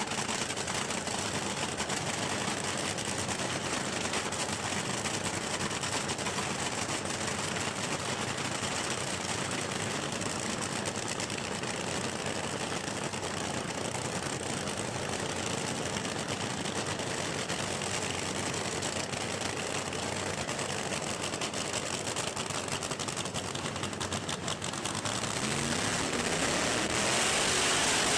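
Supercharged, nitro-burning funny car V8 engines running steadily, heard through a home video camera's microphone. Near the end the sound grows louder as the funny cars do their burnouts.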